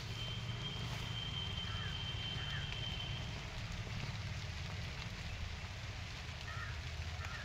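Light rain falling, a steady hiss over a low steady hum. A thin high steady tone runs for about three seconds near the start, and a few faint short chirps come and go.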